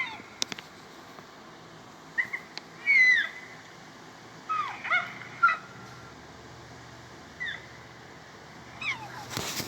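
A dinosaur sound effect made of short, high-pitched animal cries, about six in all, most of them gliding down in pitch. A harsher, noisier burst follows near the end.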